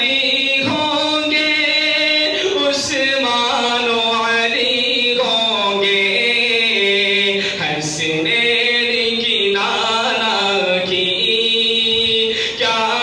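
A man's voice singing an Urdu naat in long, drawn-out phrases with ornamented turns between held notes.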